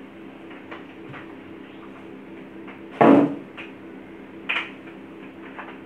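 Large plastic building blocks clicking and knocking as a child handles and presses them together, with one louder knock about three seconds in, over a steady low hum.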